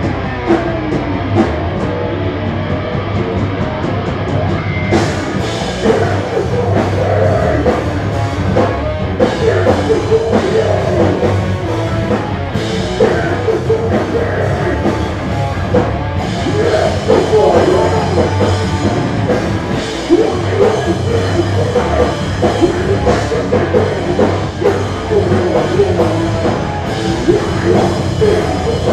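Live hardcore band playing loud: distorted electric guitar, bass guitar and drum kit, with a vocalist over them.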